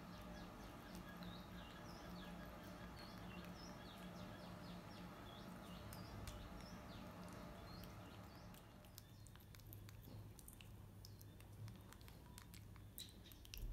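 Faint, quick high chirps repeated many times over a low hum, stopping about two thirds of the way through. After that come faint scattered clicks of a baby macaque chewing banana.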